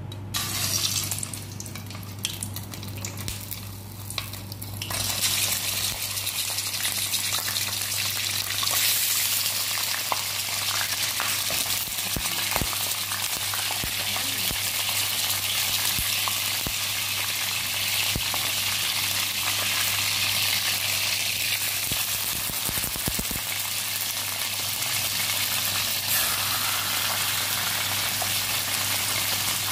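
Tulingan (bullet tuna) steaks and head frying in hot oil in a pan: a steady sizzle that swells about five seconds in and stays strong, with a few light clicks.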